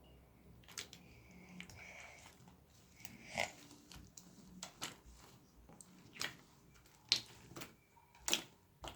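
Slime being kneaded and squeezed by hand: irregular wet squelches and sharp little pops, about half a dozen of them louder than the rest.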